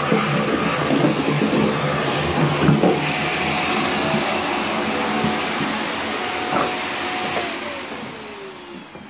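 Vacuum cleaner with a corrugated hose sucking drill dust out of a freshly drilled anchor hole in a masonry wall. It runs steadily, then is switched off about seven seconds in, its motor whine falling as it winds down.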